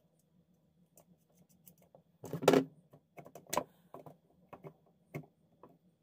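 Small metal clicks and taps as a nut is tightened onto a table fan motor by hand and with pliers, with one louder short clatter about two and a half seconds in.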